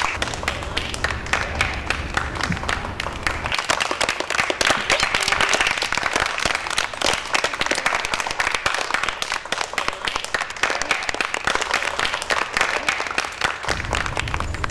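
A group of children clapping their hands in continuous applause.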